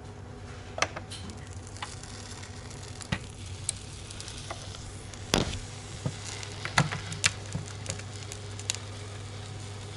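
Sandwich starting to toast in a Redmond multibaker: light sizzling and crackling as the hot plates close on it, with scattered sharp clicks of the lid and latch being handled, the loudest about five seconds in, over a steady low hum.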